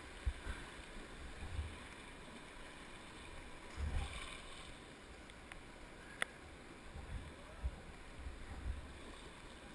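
Whitewater rapids rushing steadily, heard from water level, with occasional low thumps and one sharp click about six seconds in.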